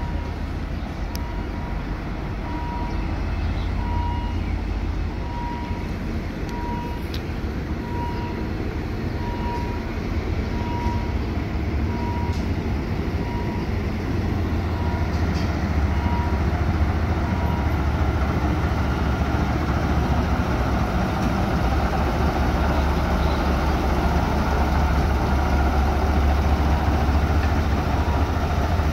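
Diesel shunting locomotive No. 77 (HAS class) running at low speed while it moves a KiHa 183 series railcar, a steady low engine rumble that grows louder over the second half as the locomotive comes close. A short beep repeats about every second and a half through the first half, then stops.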